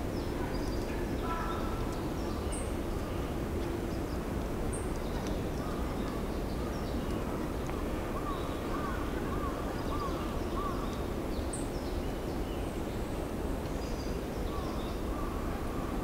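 Faint calls of wild birds over a steady low rumble. Short high chirps come here and there, and about halfway a distant bird gives a run of about six quick repeated notes.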